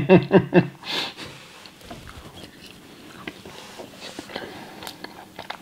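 A man eating cake: a few spoken words at the start, a sniff or breath about a second in, then quiet chewing with faint small clicks of a fork on a plate.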